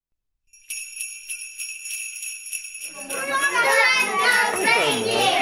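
Sleigh bells jingling in a steady, even shake. About three seconds in, a louder voice comes in over them.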